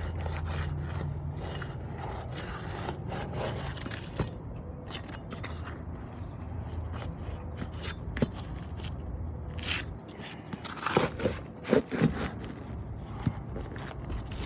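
Old, brittle asphalt shingles on a roof being lifted and scraped, with scattered sharp clicks and a cluster of louder knocks and scrapes about three-quarters of the way through.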